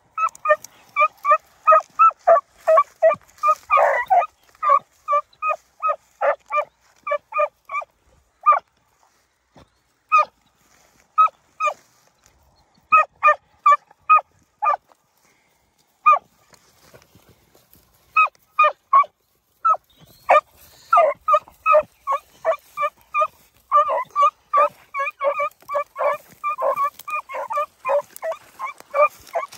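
Two beagles barking on a rabbit's scent trail: quick, short, high-pitched hound barks, about three a second. The barks come in long runs and stop twice for a few seconds, about a third of the way in and again past the middle, as the hounds lose and pick up the line.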